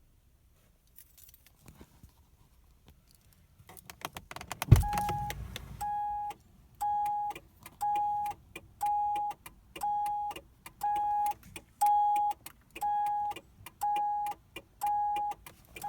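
Inside a 2000 Mercury Cougar: a heavy thump, then the car's warning chime beeping about once a second. Rapid clicking from the interior runs along with it. This is the strange clicking the car makes on opening the door or trying to start, which went with its no-crank fault, traced to the anti-theft system (PATS).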